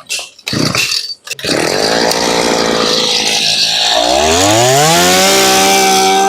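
Shindaiwa S27 27cc two-stroke brush cutter engine test-started: a few short sputters, then it catches about a second and a half in and runs at idle. About four seconds in it is throttled up, the pitch rising into a steady high-rev whine that holds.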